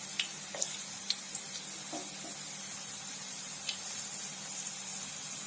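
Stuffed plantain dumplings (unnakkaya) sizzling in shallow oil in a frying pan, a steady hiss with scattered small pops. A few light taps come about half a second and two seconds in.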